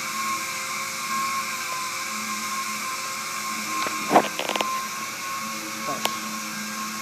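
A steady motor hum throughout. About four seconds in comes a sharp snap followed by a few quick ticks: a glue-pull dent puller releasing its glue tab from the car's door panel.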